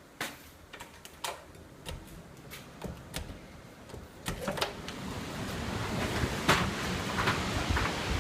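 A few light clicks and knocks, then from about four seconds in typhoon wind rising to a steady rush, with further knocks and rattles.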